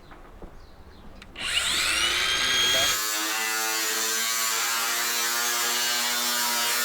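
Electric power tool motor spinning up with a rising whine about a second and a half in, then running steadily at full speed.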